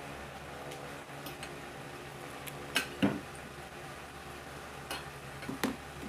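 Spoon and fork clinking and scraping on a ceramic plate while eating, with a couple of sharp clinks about three seconds in and two more near the end, over a steady low hum.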